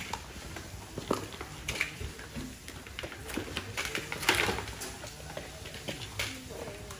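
Irregular clicks and light rattles of small plastic toys being handled, with a louder clatter about four seconds in.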